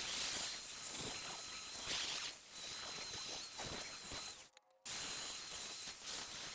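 Steady hissing noise, broken by a sudden brief silence about four and a half seconds in.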